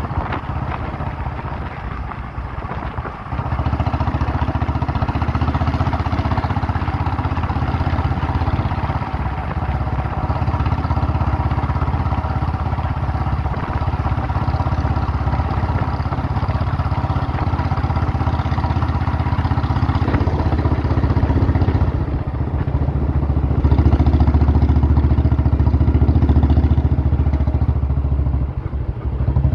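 An old Royal Enfield Bullet's single-cylinder engine thumping while being ridden. It gets louder a few seconds in and again about three-quarters of the way through.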